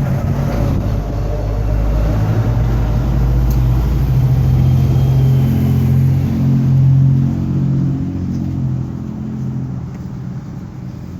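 A motor vehicle driving past, its engine growing louder to a peak about two-thirds of the way through and then fading away.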